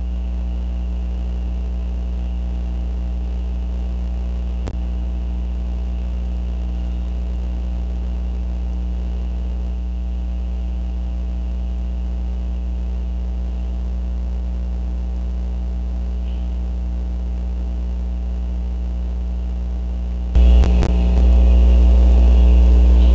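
Steady low electrical hum with a faint, steady high hiss above it. About 20 seconds in the hum jumps louder, with a few clicks.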